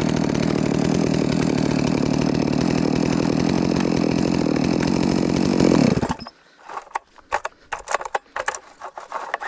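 Holzfforma G660 92cc two-stroke chainsaw running steadily, then cutting off abruptly about six seconds in. A few irregular clicks and rattles follow as the starter cord is pulled and fails to catch: the recoil starter's little plastic pawls have fallen out.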